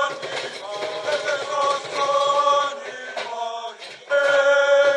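A group of Samoan firefighters singing a hymn together in harmony as they march, on long held notes. The singing dips briefly, then comes back louder about four seconds in.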